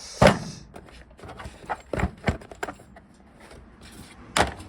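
Hard knocks and clinks of hand tools being picked up and set down in a metal tool chest drawer: a loud knock just after the start, two more around two seconds in, and a quick cluster near the end.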